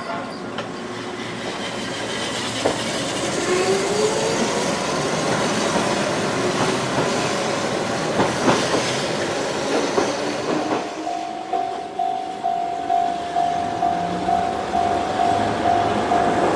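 Keihan Ishiyama-Sakamoto Line electric train pulling away from a station, its motor whine rising in pitch, with a few clanks. About eleven seconds in it gives way to a railway level-crossing bell dinging about twice a second while a train rolls over a steel girder bridge.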